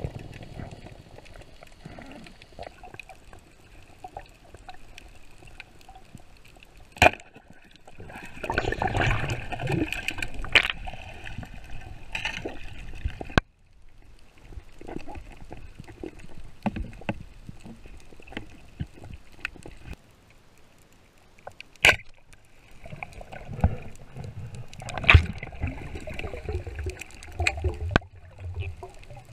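Underwater sound picked up by a diver's camera: uneven water sloshing and gurgling, swelling to a louder rush for several seconds, with a few sharp clicks or knocks.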